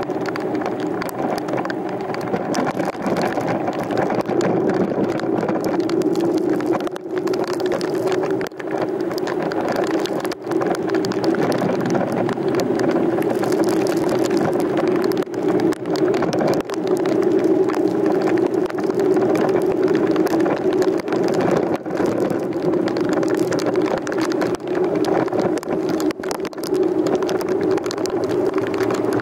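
Steady vehicle engine drone, running at an even speed with a constant low hum and brief dips in level.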